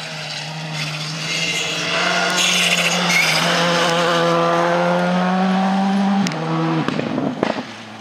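Skoda Fabia R5 rally car's turbocharged four-cylinder engine held at high revs, growing louder as the car comes past close by. About six seconds in the note drops suddenly at a gear change or lift, and the sound then fades away.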